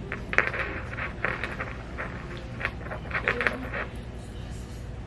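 Handling noise: a run of light clicks and rattles of small hard objects, in several quick clusters over the first four seconds, over a steady low hum.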